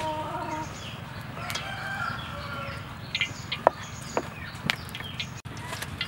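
Chickens clucking and a rooster crowing in short pitched calls, over a steady low hum, with a few sharp clicks about two thirds of the way in.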